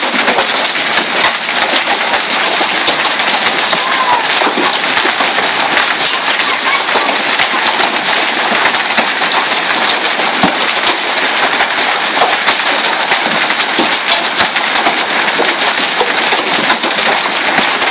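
Hailstones pelting down hard, a dense, unbroken clatter of countless small impacts on surfaces.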